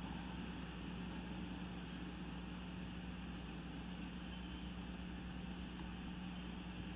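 Steady low hum with an even hiss over it, unchanging throughout, with no eagle calls.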